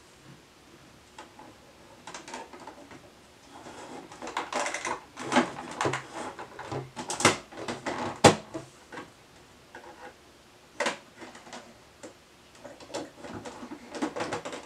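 Plastic toys handled on a wooden dresser top: a Hello Kitty toy bus and small pony figures moved, knocked and set down, giving scattered clicks and knocks, the sharpest about eight seconds in.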